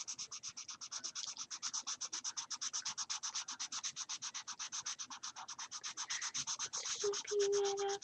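Felt-tip marker scrubbed rapidly back and forth on paper, about eight strokes a second: colouring hard and fast. A short steady tone comes in near the end.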